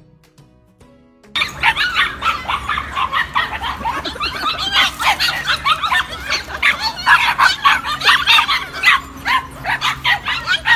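Soft guitar music, then about a second in, a group of corgi puppies breaks into loud, rapid, overlapping high-pitched yapping and barking that carries on without a break.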